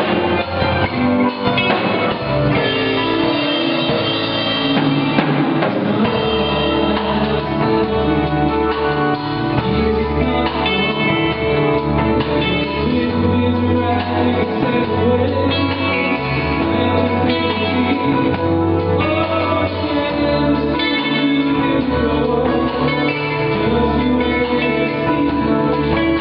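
Live rock band playing a ballad: electric guitar, bass and drum kit, with sung vocals in places.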